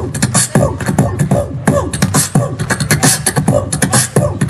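Hip-hop music played loud over a stage PA, a heavy drum beat with rapped vocals.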